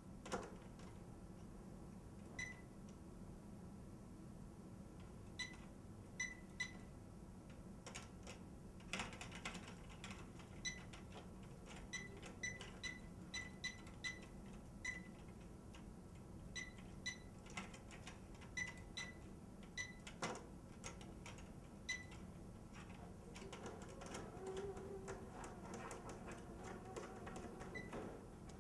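Movable-shelving control keypad beeping as its buttons are pressed: some thirty short, high beeps, singly and in quick runs, with sharp clicks between them.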